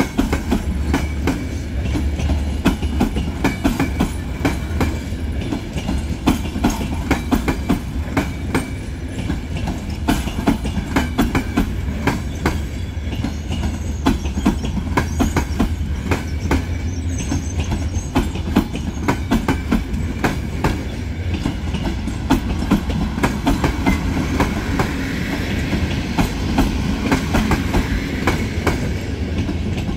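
Romanian CFR passenger coaches rolling past, their wheels clicking rhythmically over the rail joints above a steady low rumble.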